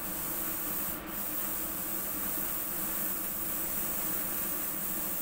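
A hobby spray booth's extractor fan running steadily, with the hiss of an airbrush spraying; a short extra spurt of hiss comes about a second in.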